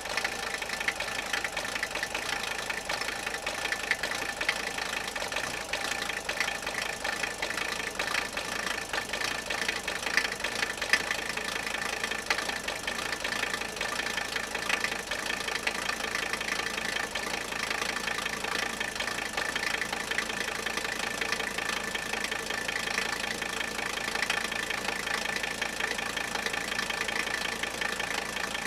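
Mercedes OM617 five-cylinder diesel engine idling steadily with a rapid, even clatter. It is warmed up and running on all cylinders, not down a cylinder.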